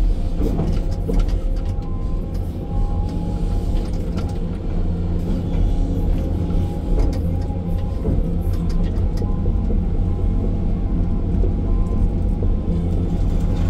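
Excavator's diesel engine and hydraulics working under load, heard inside the cab as a steady low rumble, with scattered knocks and scrapes as the bucket digs rocky soil.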